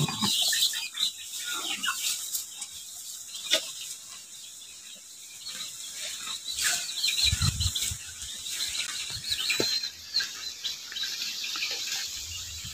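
Cattle eating fresh grass in a stall, with rustling and munching close to the microphone and a few short cracks. There are low bumps about halfway through and near the end, and steady high chirping in the background.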